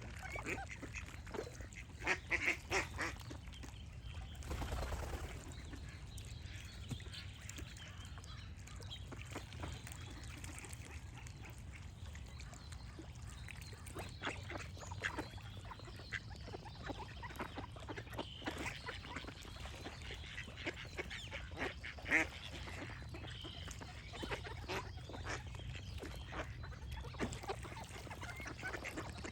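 Ducks quacking in scattered bouts of short, repeated calls, the loudest near the start and again about two-thirds of the way through.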